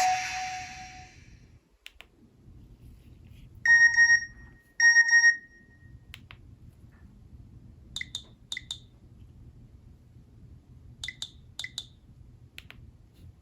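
Nokia N71 mobile phone making electronic beeps: the tail of a ringtone dies away at the start, then come two loud beeps about a second apart and later two pairs of short chirps, with faint clicks in between.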